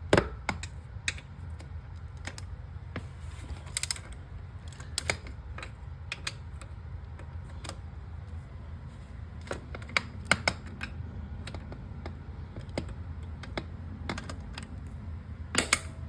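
Click-type torque wrench working the chain adjuster bolts on a Ducati Streetfighter V2 motorcycle in short strokes, giving sharp metallic clicks. The clicks come singly or in small clusters, at irregular spacing, over a steady low hum.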